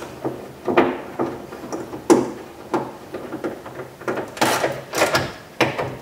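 Irregular sharp knocks and metallic clatters, about half a dozen, from hand-tool work inside the bare inner panel of a 1995 Honda Accord rear door as a screw is fitted into the window track.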